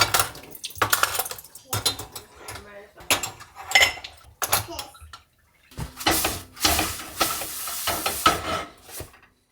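Dishes and cutlery clattering and clinking in a kitchen sink, with a longer stretch of water and clatter in the second half, then a sudden cut.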